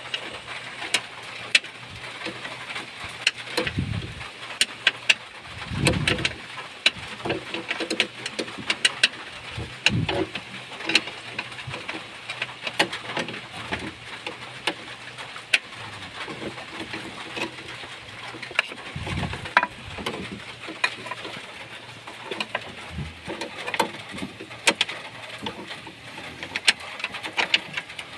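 Low cooing calls several seconds apart, like pigeons or doves, with many irregular sharp clicks and taps.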